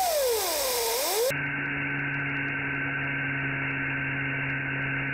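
Whine of the gas-turbine-driven 3D-printed blender's spinning rotor, dipping in pitch and rising again during the first second. It cuts off abruptly to a steady low hum with hiss.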